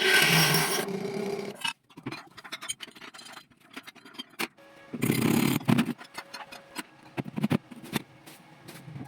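Scraping or rubbing of hand tool work for about a second and a half, then scattered clicks and knocks, with another short burst of scraping about five seconds in.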